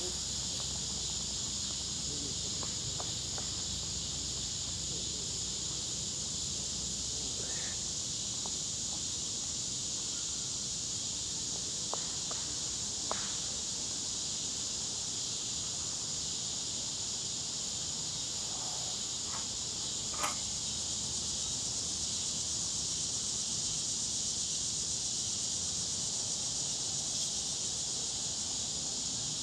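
Steady high-pitched drone of an insect chorus, with a few brief clicks about twelve, thirteen and twenty seconds in.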